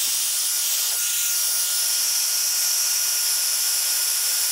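Heat gun running at a steady pitch, its fan blowing hot air with an even hiss and a faint steady whine, shrinking heat-shrink tubing over a spliced wire.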